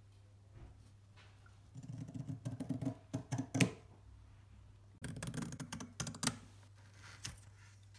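Stainless-steel pinking shears cutting through fabric: two runs of quick clicking snips, the first starting about two seconds in and the second about five seconds in, with one more click near the end.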